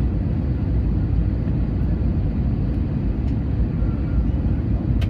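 Jet airliner cabin noise in flight: the engines and the airflow past the fuselage make a steady, deep rumble heard from a window seat.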